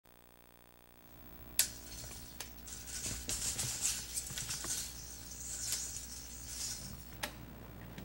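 Steel tape measure being pulled out and handled: a sharp click about a second and a half in, then a run of irregular rattling clicks and scraping, and another sharp click near the end.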